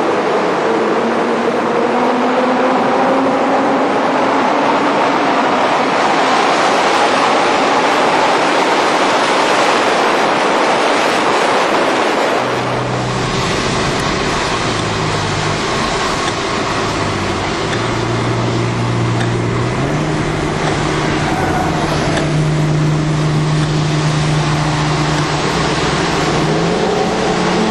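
Mitsubishi FTO sports cars driving in convoy: engines pulling with a rising pitch over heavy road roar in a tunnel. About twelve seconds in the sound cuts to lower, steady engine notes that step up and down in pitch as the revs change.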